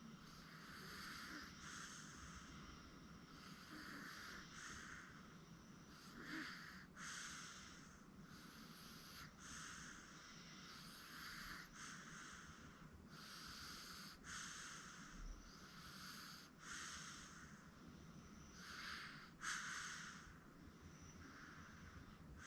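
A sleeping baby breathing softly with light snoring, an even rhythm of about one breath-sound a second. Two louder snorts stand out, about a quarter of the way in and near the end.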